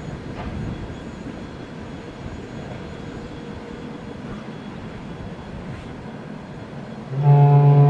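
Distant rumble of a VL10 electric locomotive hauling a freight train on approach. Near the end comes a loud horn blast of about a second from the locomotive.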